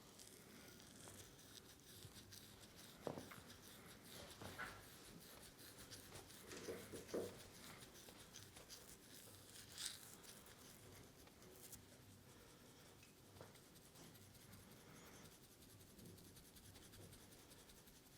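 Faint massage sounds: hands rubbing and brushing over skin and hair, with a single soft knock about three seconds in.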